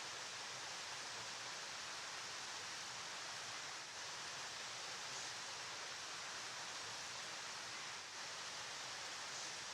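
River water flowing, a steady even rushing hiss with no breaks.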